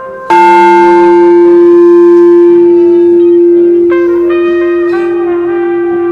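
A tuned chakra singing bowl struck once about a third of a second in, ringing with one loud steady tone that sustains and slowly fades, over background music.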